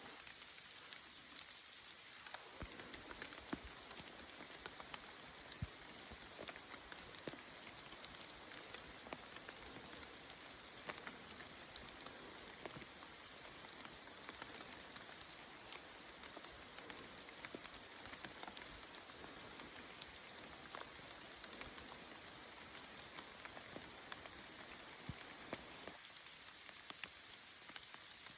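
Steady rain falling, an even hiss dotted with the ticks of single drops, a little fuller from a couple of seconds in until near the end.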